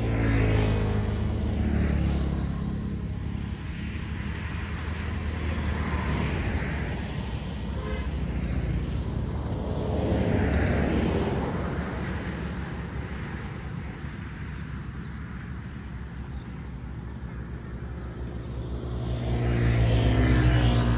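Road traffic passing: several vehicles go by one after another, their engine hum swelling and fading and shifting in pitch as each passes, loudest near the start, around the middle and near the end.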